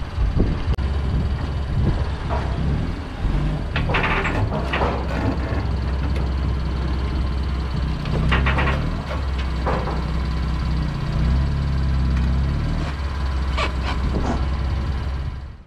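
BMW M3's engine running at low speed as the car creeps up onto a car trailer, with a few knocks and creaks as the front tire rolls up to the trailer's front bar.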